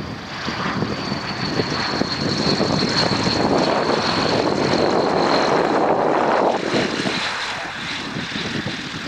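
C-160 Transall's two Rolls-Royce Tyne turboprop engines and propellers on landing approach: a high whine drifting slightly lower in pitch over a broad propeller rush that builds, peaks, then falls away sharply about seven seconds in.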